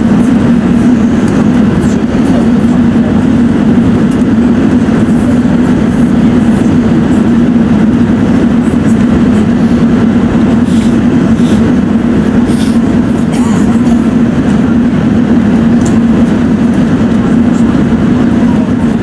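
Steady cabin noise inside an Airbus A380-842 on approach: a constant low hum from its four Rolls-Royce Trent 970 engines, with the rush of air over the airframe.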